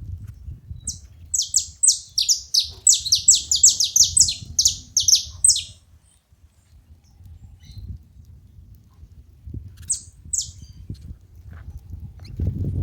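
Saffron finches calling: a rapid run of sharp, high notes, each sweeping down in pitch, about four a second for some five seconds, then two more such notes about ten seconds in. A low rumble runs beneath.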